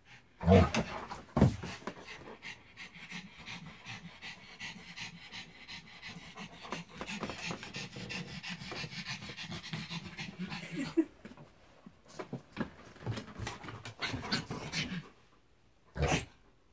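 A dog panting rapidly and steadily for several seconds, with two short, louder sounds in the first second and a half and a brief louder burst near the end.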